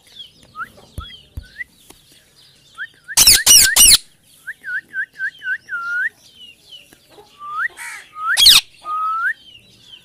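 A rose-ringed parakeet calling: a string of short whistled chirps that sweep up and down, including a quick run of six, broken by three loud harsh screeches a few seconds in and one more near the end.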